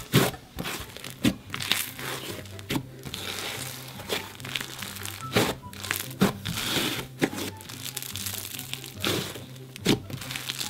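Clear slime overloaded with glitter and sequins being kneaded and squeezed by hand, giving irregular crackling, crunchy pops as the stiff, grainy slime is worked.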